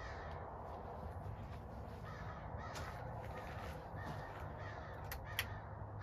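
Birds calling in the background over a steady low hum. About five seconds in comes a small click, then a sharp, louder click as the ceiling fan's pull-chain switch is pulled and the light kit comes on.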